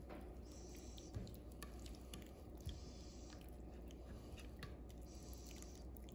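Hands squeezing and rubbing marinade into a raw steak in a glass baking dish: faint wet squishing with scattered small clicks, over a low steady hum.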